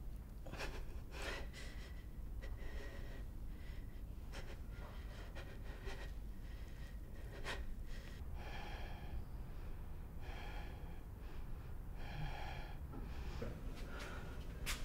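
A person breathing in short gasps, a few of them about two seconds apart in the second half, over faint rustles and clicks.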